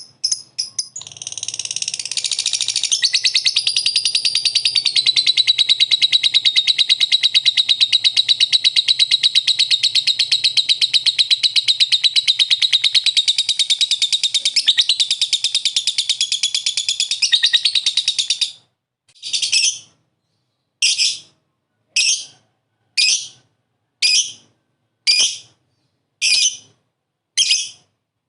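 Lovebird singing its long 'ngekek' chatter: one unbroken, rapid, high-pitched trill lasting about seventeen seconds, then breaking into short separate calls about one a second.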